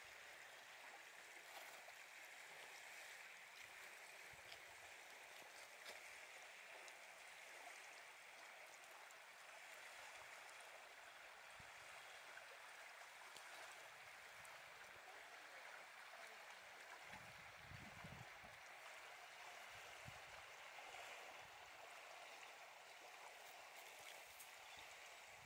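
Faint, steady lapping and gurgling of estuary water against shoreline rocks, with a few low rumbles late on.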